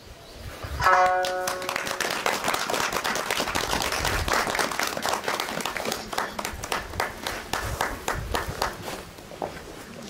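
Audience applause that starts about a second in, goes on steadily and thins out near the end. As it begins, a last plucked shamisen note rings briefly.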